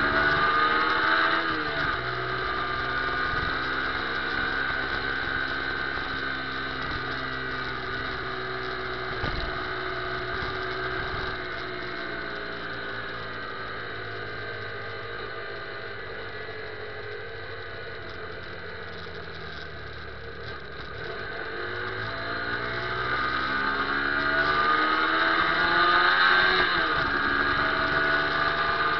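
Motorcycle engine heard from the bike itself while riding through town, over wind and road noise. Its pitch drops as it slows about a second in, runs steady and quieter through the middle, then climbs and gets louder as it accelerates, dropping again near the end.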